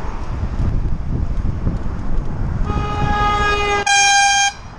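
A horn sounds twice in quick succession: a steady tone of about a second, then straight after it a louder, higher blast of about half a second that cuts off suddenly. Wind noise on the microphone and traffic rumble run underneath.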